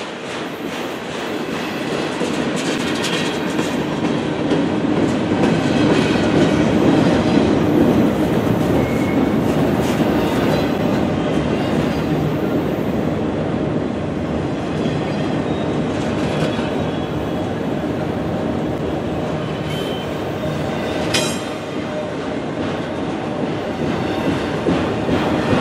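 Autorack freight cars of a manifest train rolling past at steady speed: a continuous rumble of steel wheels on rail with rapid clickety-clack over the rail joints. One sharp clank stands out a few seconds before the end.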